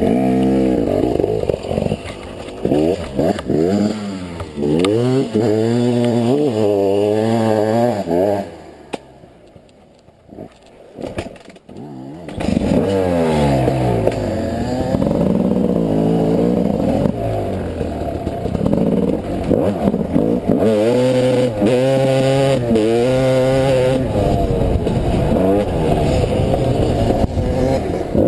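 Two-stroke 300cc enduro dirt bike engine revving up and down as the bike rides over rough trail, its pitch rising and falling again and again. About nine seconds in, the engine sound drops away to a low level for about three seconds, then picks back up and runs steadily loud.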